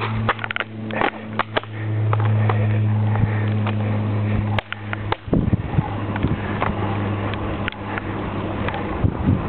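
A steady low hum with frequent sharp clicks and rattles. About five seconds in the hum drops away and wind buffets the microphone, with the hum still faint beneath it.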